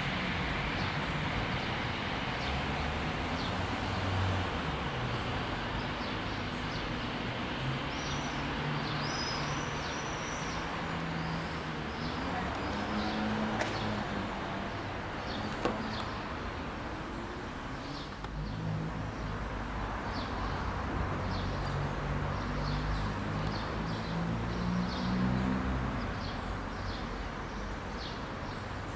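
Steady low rumble of vehicle engines, with birds chirping over it, more often in the second half.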